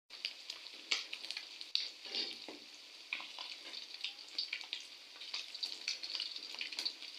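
Small tilapia frying in hot oil: a steady sizzle with frequent scattered crackling pops.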